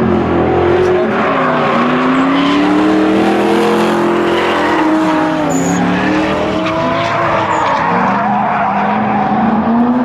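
Two drift cars in a tandem run, engines revving up and down as they swing through the course, with tyres squealing throughout.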